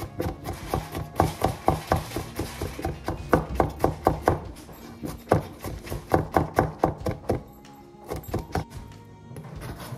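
A wide-bladed kitchen knife chopping rapidly on a plastic cutting board, mincing food. The knocks come about four a second in runs and thin out to a few light taps after about seven seconds.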